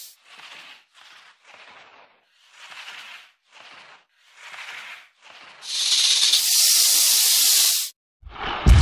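A series of about seven short, soft hisses, then a much louder, longer hiss lasting about two seconds.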